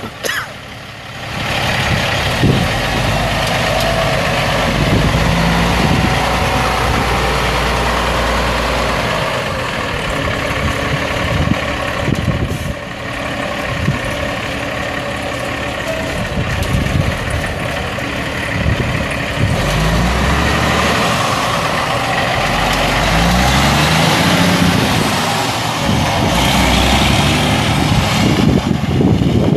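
2002 Freightliner Classic XL semi tractor's Cummins ISX 14.9-litre straight-six turbo diesel running as the truck drives off, its pitch rising several times as it pulls away.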